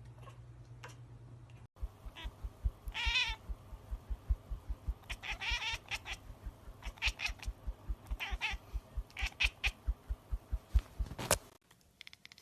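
A kitten mewing again and again in short, high cries, some of them wavering. Under the cries there is a steady low thumping about four times a second. Both stop abruptly near the end.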